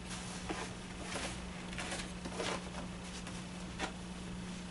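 Raw canvas being pulled tight over wooden stretcher bars by hand: quiet, short scuffs and rustles of the fabric, with a sharper little knock about four seconds in. A steady low hum runs underneath.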